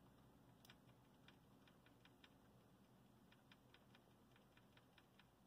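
Near silence with faint, irregular clicking, a few clicks a second: the loudness switch of a Marantz 1122DC amplifier being worked back and forth to clean up its dirty contacts.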